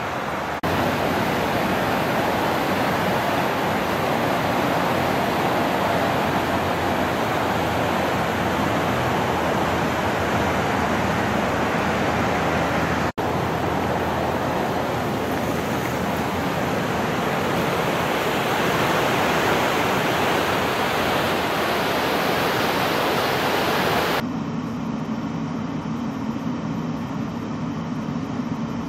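Steady, full rushing noise of fast-flowing runoff water, broken once by a momentary dropout about halfway through. Near the end it cuts abruptly to a quieter, lower steady hum.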